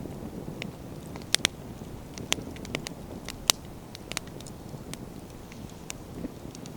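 Wood bonfire crackling: scattered sharp pops and snaps of burning firewood over a low steady rumble, the loudest pop about three and a half seconds in.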